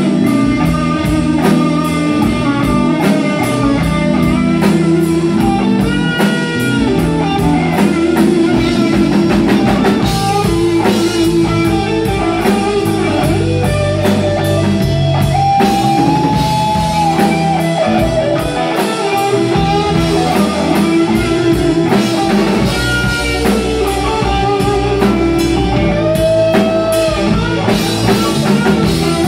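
Live rock band playing loudly and continuously: electric guitars over a drum kit and keyboard, with long held guitar notes that bend in pitch.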